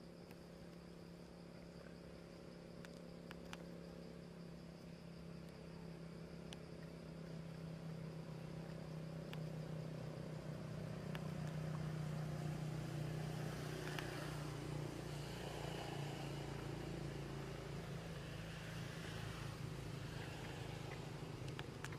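A steady low engine hum that grows louder over the first half and then holds, with a few faint clicks.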